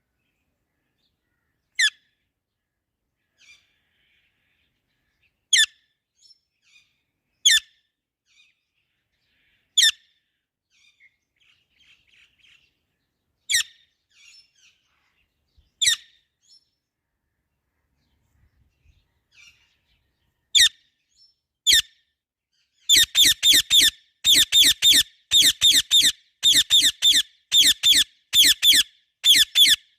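A parrot giving short, sharp chirping calls, one every couple of seconds, then breaking into a rapid run of loud repeated calls, about three a second, near the end.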